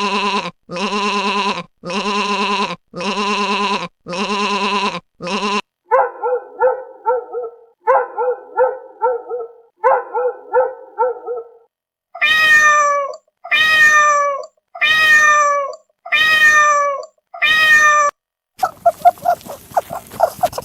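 A series of different farm animal calls, one kind after another, each repeated several times in even sets. Near the middle come six calls that each fall in pitch, and near the end a run of rapid short grunting pulses.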